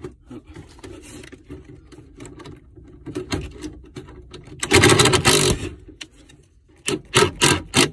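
Cordless impact driver driving a screw: one loud rattling run of under a second about five seconds in, then several short bursts near the end, with lighter clicks and knocks of handling before.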